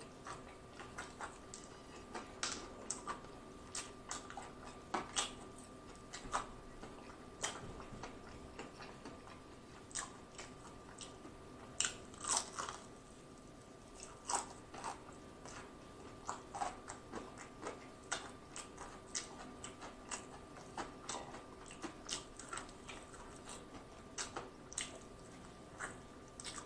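Close-miked biting and chewing of crispy fried chicken: many short, irregular crunches of the breading, with quieter chewing between them.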